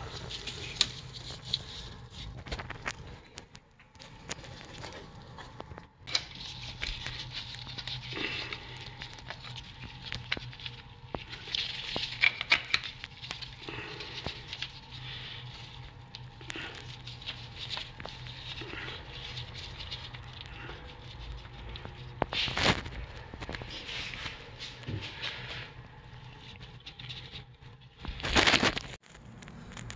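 Rubber-gloved hands working on an open engine cylinder head, making scattered small clicks and rustling over a steady low hum. There are two short, louder rustling bursts, one about three-quarters of the way in and one near the end.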